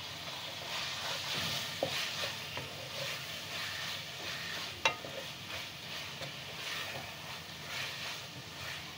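Onions, tomatoes and green chillies sizzling in oil in a metal kadhai while a cooking spoon stirs them, scraping the pan. A few sharp knocks of the spoon against the pan come through, the loudest about five seconds in.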